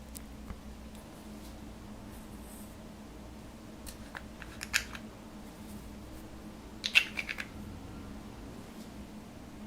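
Slime being worked by hand, giving a few short sharp clicks and crackles in two clusters, about four and seven seconds in, over a faint steady hum.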